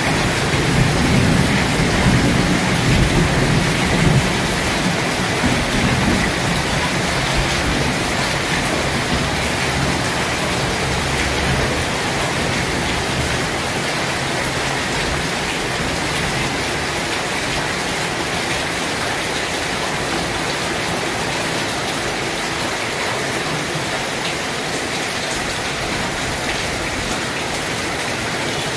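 Steady heavy rain falling, an even hiss throughout. A low rumble of thunder sounds in the first few seconds and dies away.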